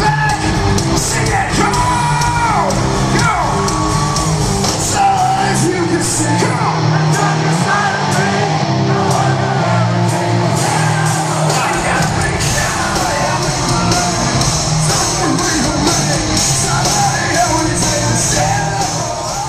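Live hard-rock band playing loud through an arena sound system, a singer's voice gliding over bass and steady drum hits. The crowd yells along, and the big hall adds echo.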